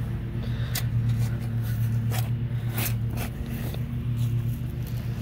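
A steel shovel scraping and crunching into dry, stony garden soil, with several sharp scrapes in the first few seconds. A steady low hum sits underneath.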